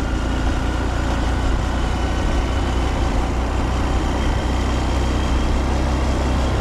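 Honda Monkey's 124 cc single-cylinder engine running at a steady cruise, mixed with rushing wind noise from riding.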